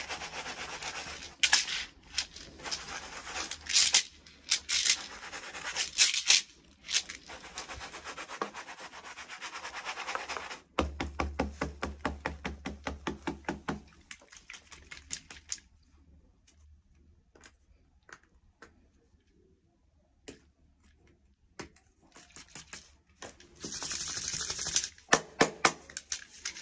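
Hands rubbing briskly on something, a rough scrubbing sound that about halfway turns into a run of quick, even strokes several times a second. Then come a few scattered faint taps and, near the end, a second short burst of rubbing.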